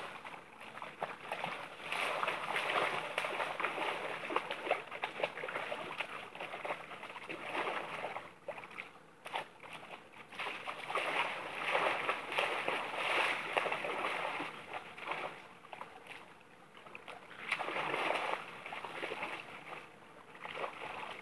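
Water splashing and burbling in a shallow, running river as a dog wades through it, swelling and fading in uneven stretches.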